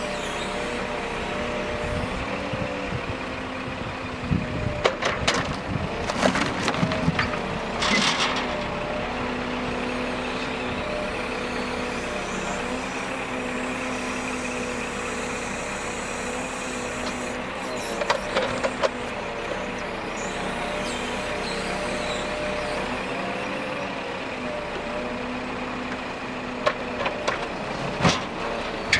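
Log forwarder's engine and hydraulic crane running steadily, its pitch wavering a little as the crane moves under load. Clusters of wooden knocks and clatters from logs striking as they are gripped and dropped come several seconds in, again past the middle, and near the end.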